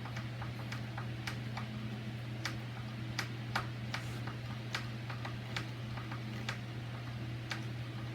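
Irregular sharp clicks, one or two a second, as a screwdriver drives small wood screws through a deadbolt latch plate into the edge of a wooden door. A steady low electrical hum runs underneath.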